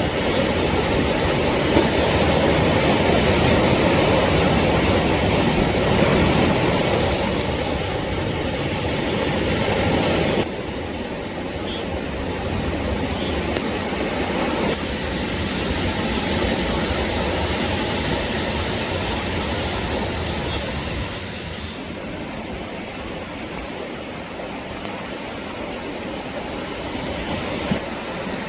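Sea waves washing and breaking on the shore, a steady loud surf noise with a low rumble. Its level and character shift abruptly several times.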